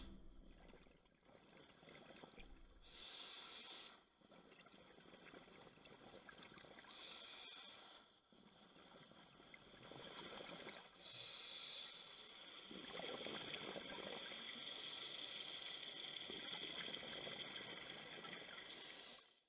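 Muffled underwater sound through an action camera's waterproof housing: scuba regulator exhalations bubbling in surges a few seconds apart, with a longer stretch of bubbling near the end, over a faint steady hiss.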